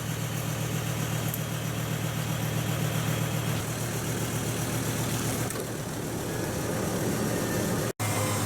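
Diesel engine of an off-road 4x4 running steadily at low revs. Its note shifts about halfway through.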